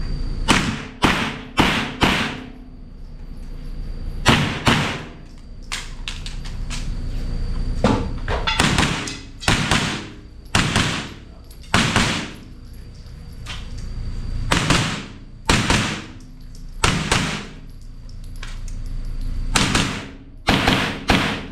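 A string of AR-15 rifle shots in 5.56 on an indoor range, about twenty in all, fired mostly in quick pairs with pauses of a second or more between groups. Hiss swells back up in the gaps between shots.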